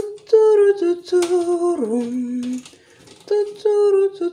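A woman humming a short wordless tune close to the microphone: a few held notes, each phrase ending in a downward slide. The phrase is sung twice, with a short pause between.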